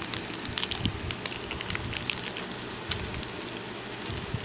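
Plastic snack wrappers crinkling and rustling as the packets are handled: a steady stream of small irregular crackles.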